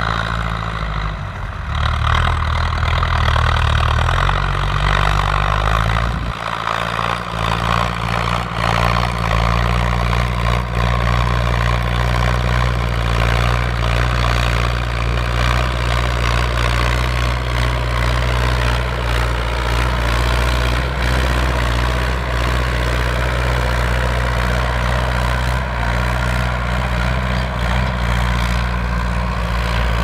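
Ford farm tractor's diesel engine running steadily under load as it pulls a plough through the soil. Its low engine note shifts in pitch about two seconds in and again around six seconds, then holds.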